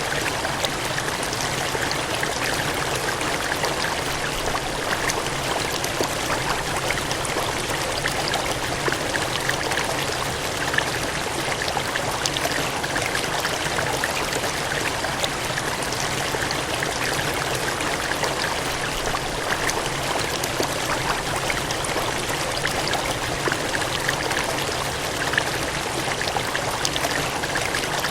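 Water gushing and cascading in a steady, unbroken rush, with fine splashing crackles all through.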